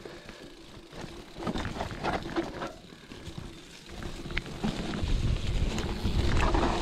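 Hardtail mountain bike riding down a rough, muddy trail: tyres rolling through mud, the chain and frame clicking and rattling, and a low rumble that swells from about four seconds in.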